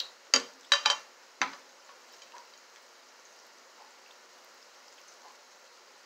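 A metal fork clicking sharply against a glass plate, five quick ticks in the first second and a half, then only faint background hiss.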